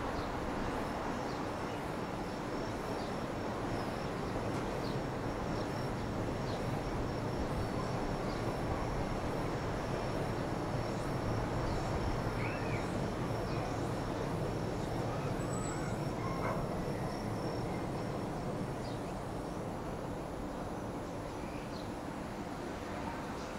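Steady low rumble of open-air town ambience, swelling slightly in the middle and easing toward the end, with a thin, steady high tone held through most of it.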